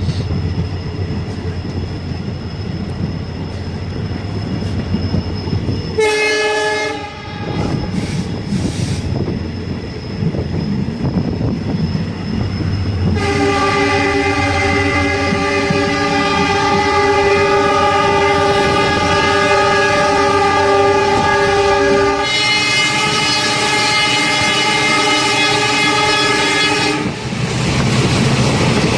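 Train running on the track, heard from on board, with a steady rumble of wheels on rail. About six seconds in a short train horn blast sounds with a falling pitch. From about thirteen seconds a long train horn is held for roughly fourteen seconds before it cuts off.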